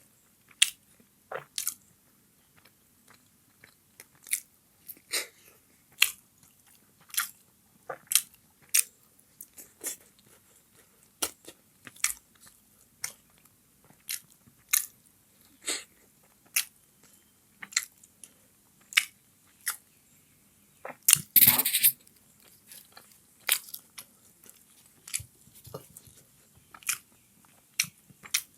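Close-miked eating of steamed chicken momos: wet chewing with sharp mouth clicks about once or twice a second, and a louder, longer burst about 21 seconds in.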